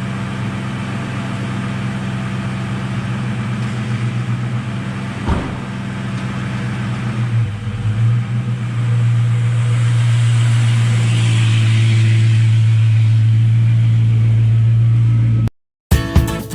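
1996 Ford Mustang GT's 4.6-litre V8 running steadily after a fresh intake manifold replacement, growing louder about halfway through. Near the end it cuts off abruptly to acoustic guitar music.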